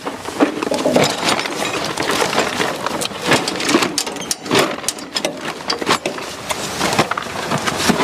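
Irregular mechanical clattering and knocking over a noisy hiss, with many quick clicks and no steady engine note.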